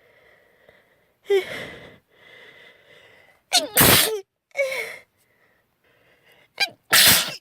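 A girl sneezing twice: two loud, sudden sneezes, the first about three and a half seconds in and the second near the end. Before and between them come sharp gasping intakes and breathy build-up sounds.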